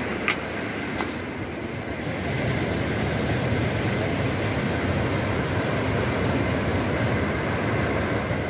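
Steady rush of a fast river running through rapids and over boulders. There are two brief clicks within the first second or so.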